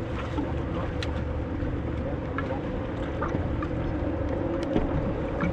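Steady low hum of a boat engine running, with a few faint clicks.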